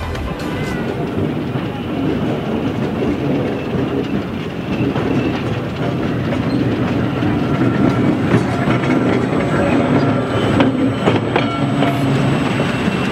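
Rail vehicle running along the track, its wheels clattering steadily over the rail joints, with a few sharper clicks near the end.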